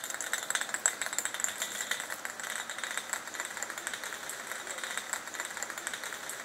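A car pulling away slowly with a sign and decorations trailing from its rear bumper, scraping and rattling along the pavement: a steady run of small irregular clicks and scrapes, with little engine rumble.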